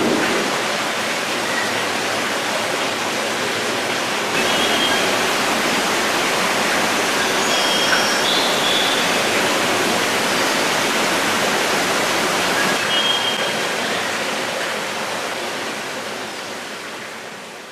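Steady rush of running water in an aquarium exhibit, with a few faint, short, high chirps; it fades out near the end.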